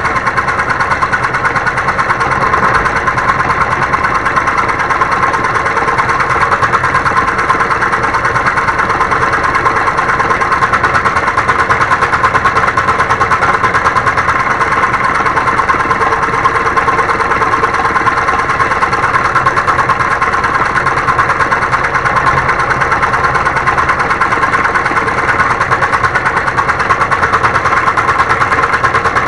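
Homemade scroll saw running steadily, its motor driving the blade up and down in a fast, even buzz.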